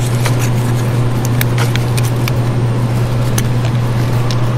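Faint metallic clicks and ticks of a new piston ring being worked onto a Kohler CH25S piston and turned by hand, over a loud steady low hum with noise.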